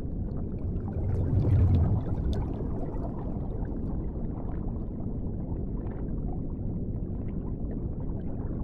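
Underwater ambience sound effect: a steady, muffled watery rumble with bubbling, swelling louder briefly about a second and a half in.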